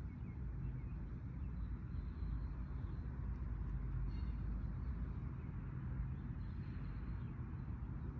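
Steady low outdoor background rumble, with faint high chirps a few times.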